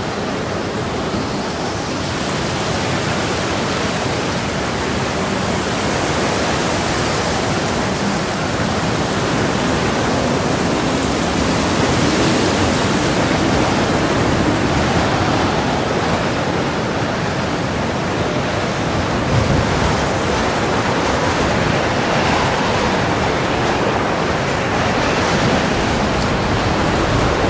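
A steady, even rushing noise with no distinct events, growing slightly louder.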